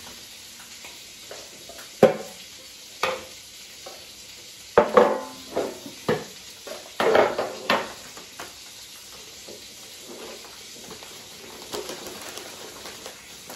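Black metal storage canisters and their lids knocking and clattering as they are opened and handled for coffee to be poured in, a handful of sharp knocks with the loudest about two seconds in. Under them, a steady faint sizzle of salmon frying in a pan.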